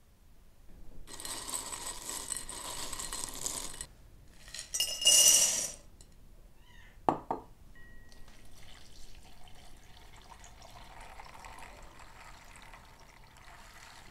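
Water poured from a clay jug into a glass bowl of dried beans: a pouring rush, a louder burst about five seconds in, a sharp clink of glass near the middle, then a quieter steady pour for the rest.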